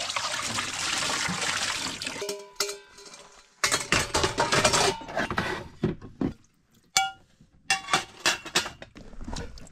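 Water pouring steadily for about two seconds, then camp dishes and metal pots clattering and clinking, some strikes ringing briefly.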